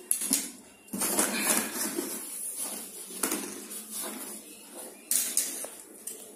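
Plastic packing straps on a cardboard box being pulled and cut with scissors: irregular scraping and rustling, with a couple of sharper snaps about three and five seconds in.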